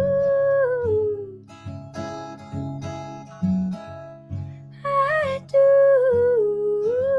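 A woman singing long held notes over a strummed acoustic guitar. The first note slides down and fades after about a second and a half, the guitar carries on alone for a few seconds, and the voice comes back near five seconds in on another long, held note.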